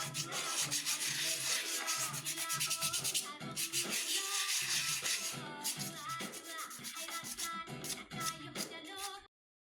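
Background music with melodic notes and a fast, busy percussion beat, cutting off abruptly near the end.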